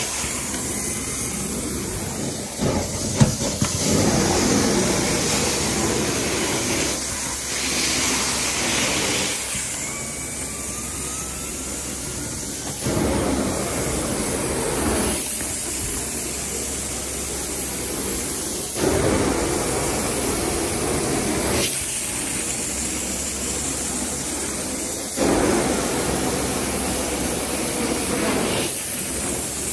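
Sapphire Scientific 870 truckmount carpet-cleaning system running through a floor wand: a steady vacuum rush with the hiss of hot-water spray. The sound changes every few seconds as the wand is drawn across the carpet in strokes.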